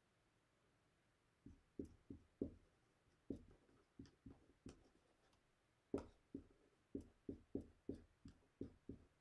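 Dry-erase marker writing on a whiteboard: an irregular run of short taps and knocks as the strokes land on the board, starting about a second and a half in.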